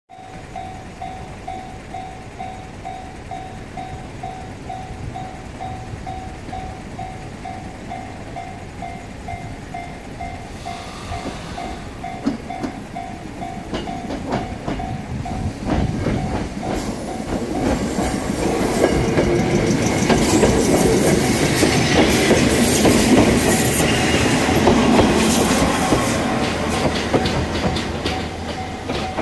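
A level crossing warning bell dings about twice a second as a Choshi Electric Railway 2000 series electric train approaches and passes. The train's wheels clatter over the rail joints, growing louder and loudest about three quarters of the way through, then fading as the bell stops near the end.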